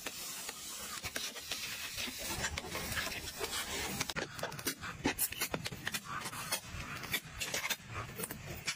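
Hands working with craft materials: irregular clicks and taps over a steady rubbing, scraping sound.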